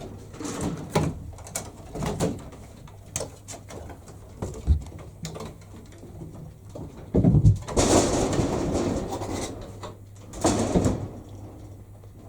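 A cat chattering at an insect on the ceiling that it cannot reach: stuttering "ukaka, ukakaka" bursts of clicks and chirps, loudest about seven seconds in and again near the end, with a couple of dull thumps.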